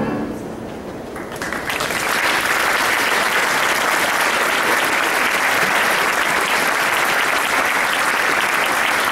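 A string orchestra's last chord cuts off, then audience applause starts about a second in, swells quickly and goes on steadily.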